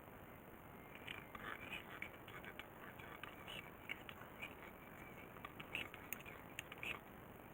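Irregular clicking and scraping of small parts and tools being handled at a workbench, in quick uneven bursts from about a second in until near the end.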